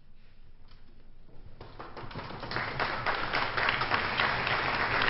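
Audience applause: a few scattered claps in a hush, then clapping breaks out about a second and a half in and swells to full applause.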